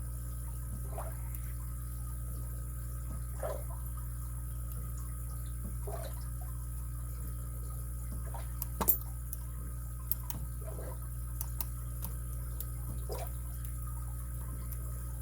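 Lock picking on a padlock: faint metallic clicks and scrapes of the pick and tension wrench working the pin stack, with one sharper click about nine seconds in. A steady low hum runs underneath.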